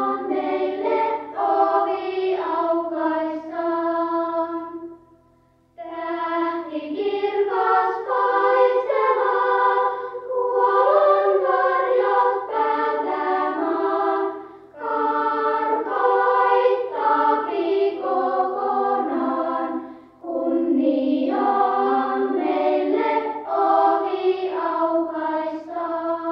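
Choir singing a slow religious song in long phrases, with three short breaks between phrases.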